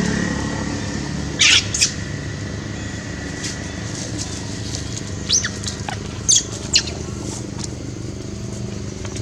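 Several short, high-pitched squeaking calls that sweep downward in pitch, in two clusters (a pair, then three or four), over a steady low motor-like hum.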